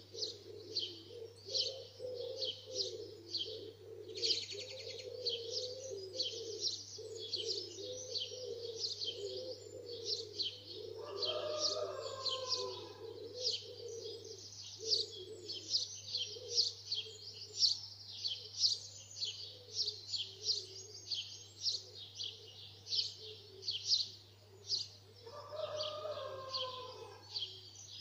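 Dawn chorus of garden birds: many quick, high chirps and song phrases overlapping throughout. Twice, a longer, lower call with a falling pitch stands out above them.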